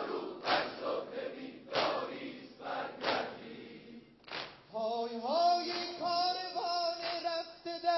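A large crowd of mourners beats their chests in unison, a sharp collective slap about every second and a quarter, over crowd voices. From about five seconds in, a man sings long held notes of a Muharram mourning lament (noheh).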